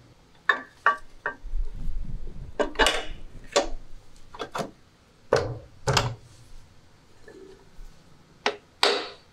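Aluminium crankcase halves of a Minsk 125 engine clinking and knocking as they are handled and fitted together over a paper gasket. Near the end come sharp taps, the start of a hammer seating the case halves.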